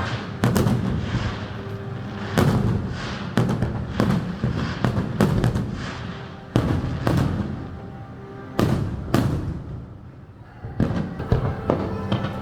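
Fireworks shells bursting in a rapid series of sharp bangs and crackles, over music playing along with the display. The bangs ease off briefly about ten seconds in, then pick up again.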